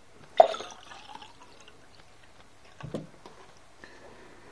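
Drinking from a plastic water bottle: water sloshing and pouring as the bottle is tipped up. There is a sharp, loud sound about half a second in and a shorter, duller one just before three seconds.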